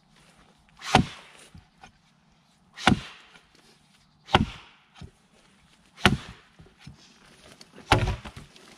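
Axe chopping into a fallen log: five heavy blows, one every second and a half to two seconds, the last near the end with a longer, rougher tail.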